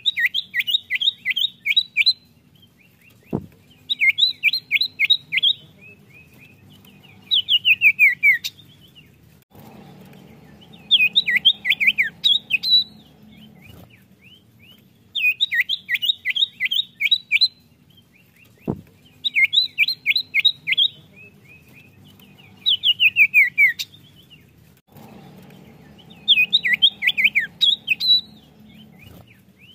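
Common iora (cipoh) singing: bursts of rapid high trilled chattering, each a second or two long, repeated every few seconds, some phrases ending in slurred falling notes. A soft knock sounds twice.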